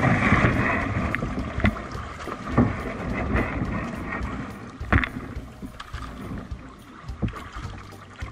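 Canoe being paddled: water sloshing and splashing around the paddle and hull, with a few sharp knocks.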